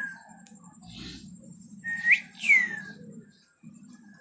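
A two-note whistle: a level note that flicks sharply upward, then a long falling glide, heard in full once about two seconds in; the end of an earlier falling note is heard at the start.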